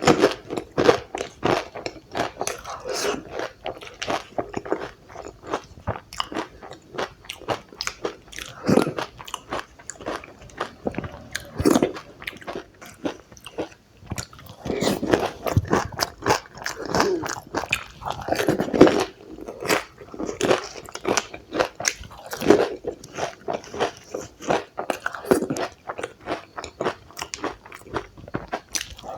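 Close-miked mukbang eating of dahi puri: crisp puri shells crunching and crackling with each bite, mixed with wet chewing of the curd, chutney and bhujia, in irregular bursts.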